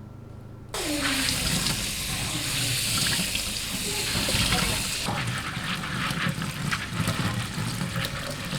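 Kitchen faucet turned on suddenly about a second in, water running and splashing into the sink; about five seconds in the splash changes, as if something is put under the stream.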